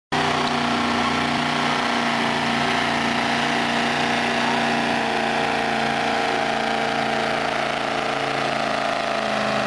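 Truck engine running hard at steady high revs while hauling a weight-transfer sled, its pitch dipping slightly for a moment and then holding again.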